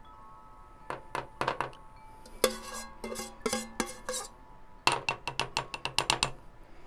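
Spatula scraping and tapping against a small metal saucepan as the last of the jam is scraped into a jar: scattered clinks and knocks, a few that ring briefly like a chime, then a quick run of taps near the end.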